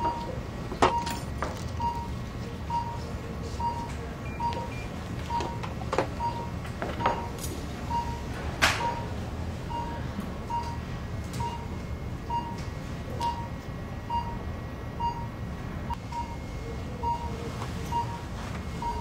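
A short electronic beep repeating evenly, a little faster than once a second, over a steady low machine hum. A few sharp clicks and knocks of handling come in the first half.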